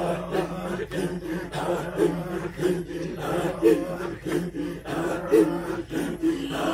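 Group of Maasai men singing a cappella: a steady low throaty drone under rhythmic chanted phrases that pulse at a regular beat.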